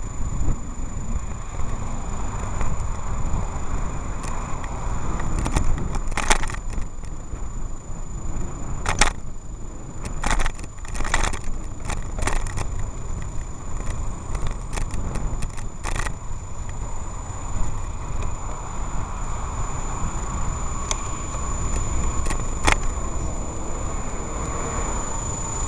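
Wind and rolling noise on a bicycle-mounted or hand-held camera riding along a city street with traffic. A cluster of sharp clicks and rattles comes in the middle, over a faint steady high whine.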